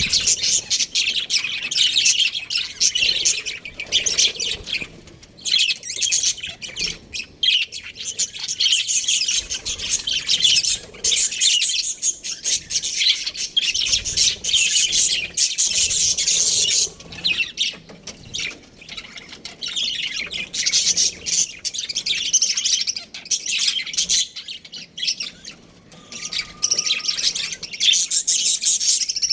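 Budgerigars chirping and chattering in a dense, continuous stream of quick high-pitched calls, with harsher squawks mixed in.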